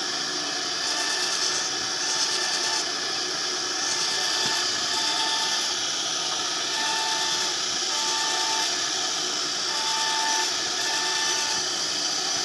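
CNC router machining a WPC (wood-plastic composite) door panel, running steadily, with a short higher tone that recurs every second or two.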